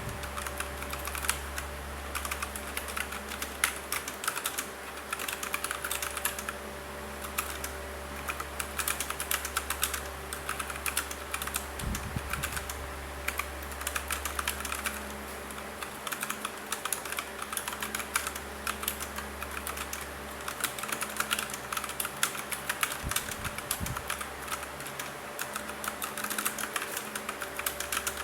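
Typing on an Aula F2088 mechanical keyboard with brown (tactile, non-clicky) switches: fast, continuous clacking of keystrokes with a couple of brief lulls.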